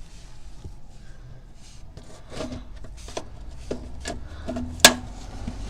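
Plastic push clips being pried out with a clip popper tool: scattered clicks and scraping, with one louder click near the end.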